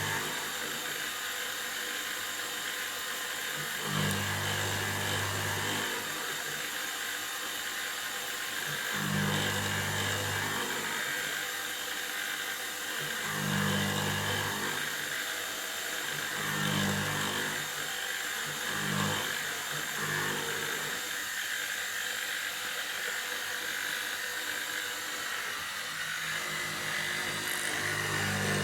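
CNC-converted Optimum BF16 mill roughing aluminium. There is a steady high spindle whine with cutting hiss, and a lower hum that sets in and stops every few seconds.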